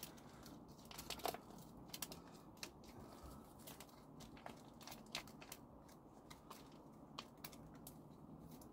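Faint, irregular scraping and crunching clicks as a small blade scrapes caked soil off a dahlia tuber clump to expose the crown.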